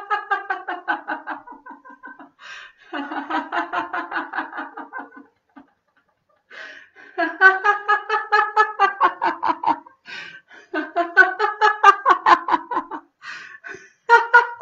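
A woman's deliberate laughter-yoga laughter: rhythmic "ha-ha-ha" laughing on each out-breath, in about five runs of rapid pulses with short pauses between them to breathe in.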